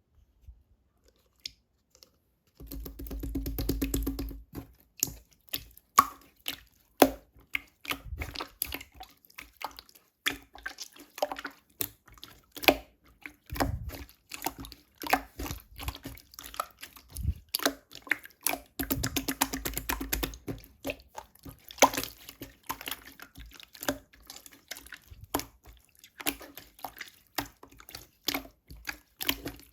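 Clear slime worked by hand, giving a steady run of wet clicks and pops, with two longer stretches of thick crackling.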